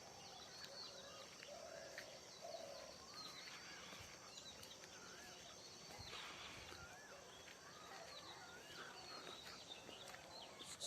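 Faint birdsong: short wavering whistled calls repeated again and again, over a steady high buzz of insects.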